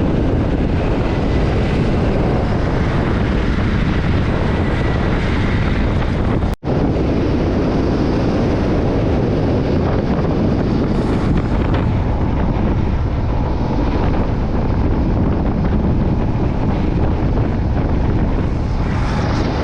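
Riding a motorcycle: steady engine and road noise with wind rushing over the microphone, cutting out for an instant about six and a half seconds in.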